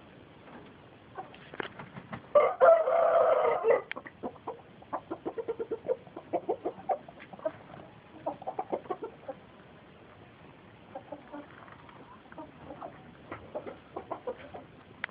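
Chickens calling: one loud drawn-out crow lasting about a second and a half, a little over two seconds in, then quick runs of short clucking notes that pause for a moment near the middle and start again.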